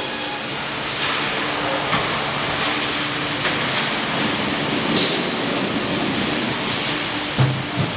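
Hydraulic log carriage rolling along its rails with a log, a steady mechanical noise with a faint hum and scattered light clicks and knocks. Two low thumps come near the end.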